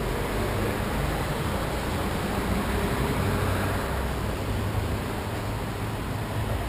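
Steady city street background noise: an even hiss with a low rumble underneath.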